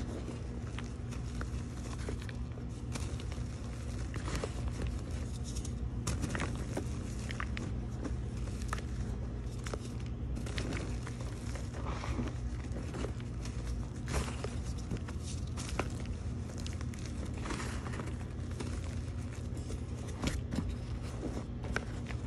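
Gym chalk balls squeezed and crumbled by hand in a bowl: soft, irregular crunches and powdery crackles, over a steady low hum.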